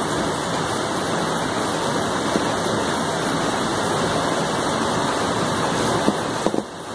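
A steady rushing hiss with a few faint clicks near the end.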